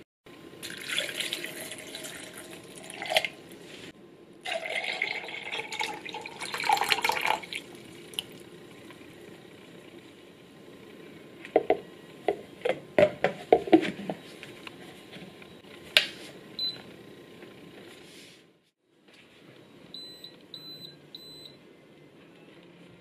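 Water poured over soaked soybeans in a soy milk maker's jug in two pours, then a run of sharp plastic clicks as the lid is fitted and the button pressed. Near the end the soy milk maker gives a run of short high beeps, its signal that the soy milk is done.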